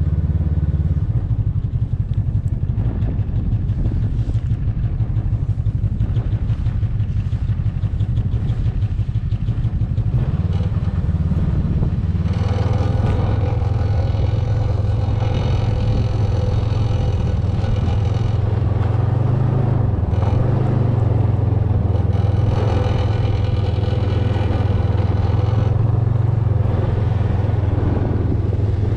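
Snowmobile engine running steadily under way, with a low drone that shifts in pitch now and then and grows brighter about halfway through.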